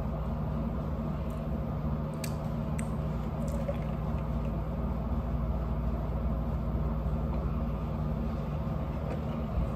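Steady low machine hum, even throughout, with a few faint clicks.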